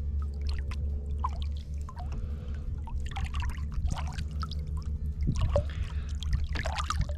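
Water splashing and trickling in irregular bursts, heaviest in the second half, over a steady low rumble.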